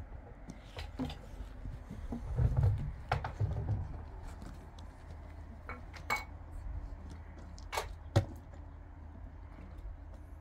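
Scattered clinks and knocks of hard objects being handled, with a few low thuds about two and a half seconds in and sharper clicks later on.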